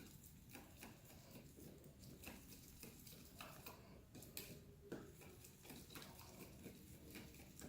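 Faint, irregular clicking and ticking of a stirrer working slime in a container as the slime activator is mixed in to make it clump.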